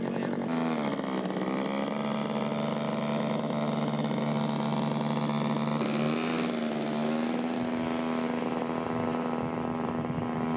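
Engine of a radio-controlled scale aerobatic model airplane running steadily on the ground, ready to taxi. Its pitch dips slightly about half a second in and rises a little around six seconds in.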